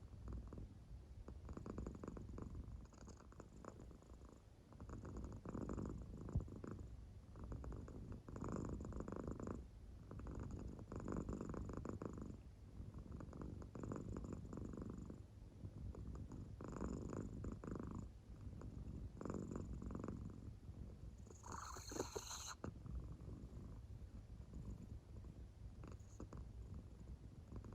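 An American Shorthair cat purring softly in deep sleep, the purr swelling and fading with each breath about every three seconds. A brief higher-pitched sound comes about three quarters of the way through.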